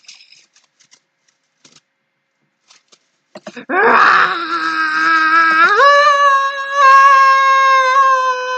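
A few faint clicks, then a long, loud scream starting about three and a half seconds in. It rises to a higher pitch about two seconds later and holds there.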